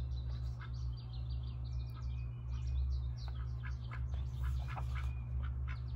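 Small birds chirping, with many short high notes coming thick and fast, over a steady low rumble.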